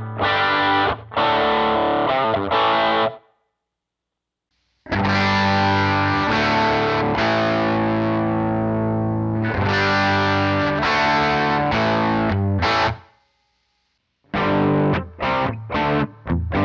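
Distorted electric guitar played direct through a Line 6 POD 2.0 amp modeler. Short choppy chords stop a few seconds in, and after a silence of about a second and a half come ringing, sustained chords that fade out. A second brief silence follows, then choppy chords start again.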